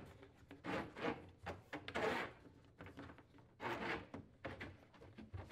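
Corrugated plastic dishwasher drain hose being pulled through a hole in a wooden cabinet wall, scraping and rubbing against the wood in a few uneven strokes.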